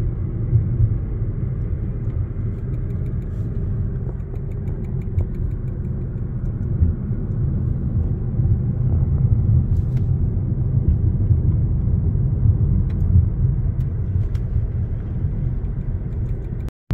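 Steady low rumble of road and engine noise inside a moving car's cabin as it drives along an asphalt highway. The sound drops out for a moment near the end.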